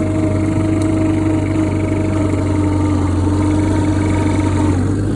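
1972 International Harvester Cub Lo-Boy 154's four-cylinder engine running steadily while the tractor pushes snow with its front plow. The engine's pitch eases slightly near the end.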